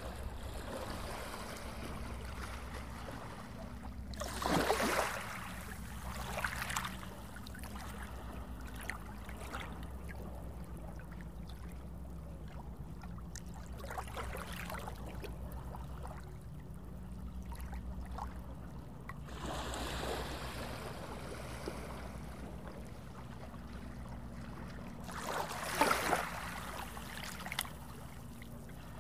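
Small sea waves washing up on a sandy shore over a steady low rumble, with louder rushing swells about four seconds in, around twenty seconds and near the end.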